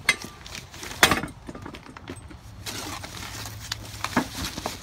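Packaging being handled while unboxing a garden cart: two sharp knocks near the start, the second the loudest, then a steady crinkling rustle of plastic wrap with a few small clicks.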